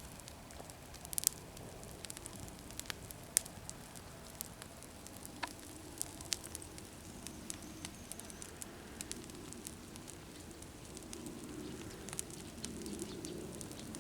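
Garden bonfire of leaves crackling quietly, with scattered sharp pops. A faint low drone of a distant aeroplane builds in the last few seconds.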